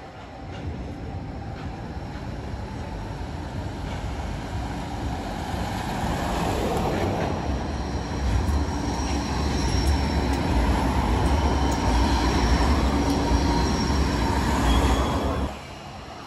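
G:link light-rail tram passing close, its rumble and wheel noise growing louder as it nears, with a thin high whine over it, then dropping off sharply near the end.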